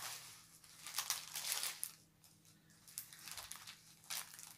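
Paper wrapping and a rolled diamond painting canvas rustling and crinkling in several irregular bursts as the canvas is unwrapped and unrolled by hand, with a short lull about two seconds in.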